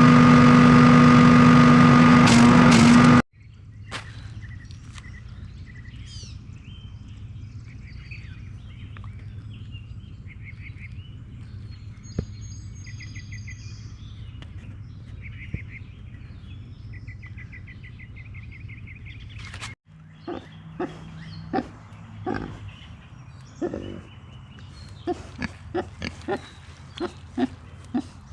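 A small engine running steadily at a constant speed, cut off abruptly about three seconds in. Then a quiet outdoor background with birds chirping in short repeated trills. From about twenty seconds in, pigs grunting in many short, separate grunts.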